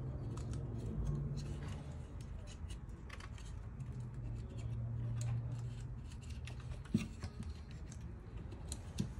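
Light clicks and rustles of a laser-printer fuser unit's plastic and sheet-metal parts being handled while its sensor and cable are refitted, with a sharper knock about seven seconds in and another near the end.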